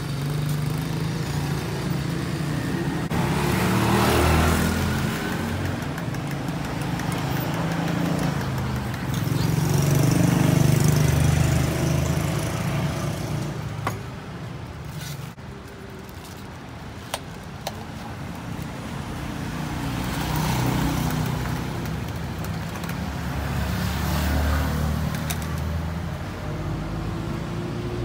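Street traffic: motorcycles and cars passing one after another, the engine noise swelling and fading several times. A few light clicks sound around the middle.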